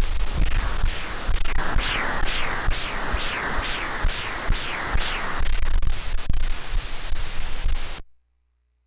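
Pulsed-wave Doppler ultrasound audio from an obstetric scan: rhythmic whooshing pulses, a bit over two a second, the beat of blood flow at a fetal heart rate, over a scratchy hiss. The sound cuts off abruptly near the end.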